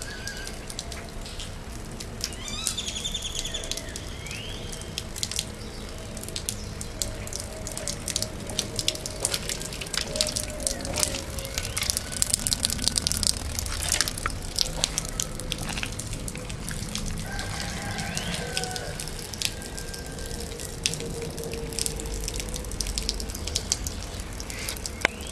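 Water splashing and dripping in many quick little clicks, busiest midway through, with a bird chirping briefly a couple of times.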